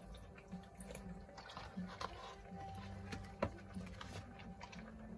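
Faint scattered clicks and taps of kitchen handling over a low steady hum, with one sharper click about three and a half seconds in.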